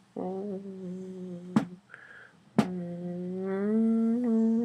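A dog howling in two long, steady-pitched notes, the second held longer and rising slightly toward the end, with two sharp clicks between them.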